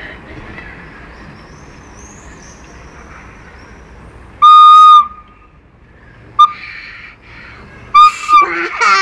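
A toddler blowing a recorder, sounding one high, steady note: a loud blast about half a second long some four and a half seconds in, a very short toot around six and a half seconds, and another short note at about eight seconds. The child's voice starts at the very end.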